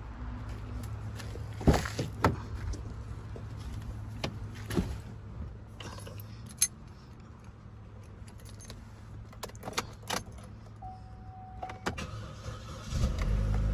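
Keys jingling and scattered clicks and rattles, a short steady electronic tone, then the 2012 Chevy Cruze's engine starts near the end and runs steadily.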